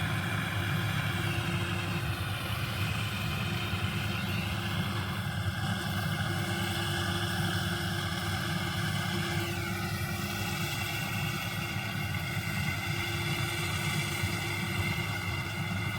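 Rice combine harvester running steadily: a low engine drone with a high machinery whine above it that twice shifts down in pitch.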